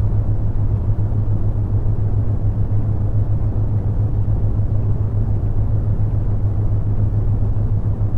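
Synthesized brown noise: a steady deep rushing hiss, heaviest in the low end, with a steady low hum of theta-wave tones under it. Nothing in it changes.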